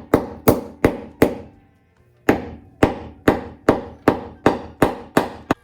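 Hammer blows driving a small carpet tack through layered carpet: a quick run of sharp strikes, a pause of about a second, then a longer run of about nine more, each with a short ringing tail.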